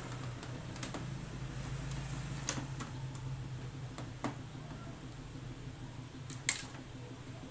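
Scattered light clicks and taps of a screwdriver on the plastic housing of an Epson L5190 printer as two screws underneath are undone, the sharpest tap about six and a half seconds in, over a steady low hum.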